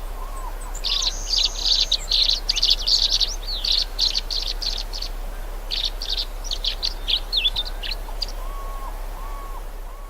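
A songbird singing a fast, chattering song of rapid high notes, with a short pause midway. A lower repeated call, about two a second, is heard at the start and again near the end, over a steady hiss and a low hum.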